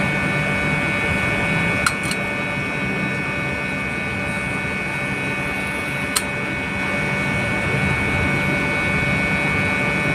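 Steady hum of running machinery with several fixed tones. A few sharp metallic clicks come about two seconds in and once near six seconds, as a bushing housing is handled on a steel pump shaft.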